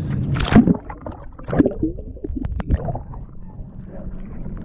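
A few short splashes and knocks close by, the loudest about half a second in and another about a second later, with lighter clicks after, typical of a hooked fish being brought up to the side of a small boat.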